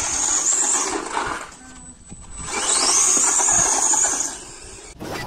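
RC monster truck's electric motor whining under throttle in two bursts: each time the whine rises quickly to a high pitch, holds for a second or so, and then drops away.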